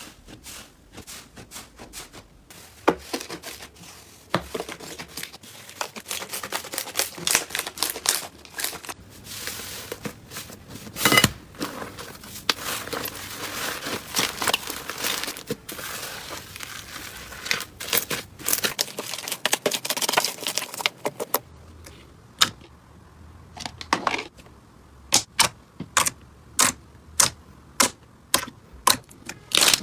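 Slime being squeezed and poked by hand, giving a run of crackling clicks and pops, with one loud snap about eleven seconds in. Near the end the pops come singly and sharply, about two a second.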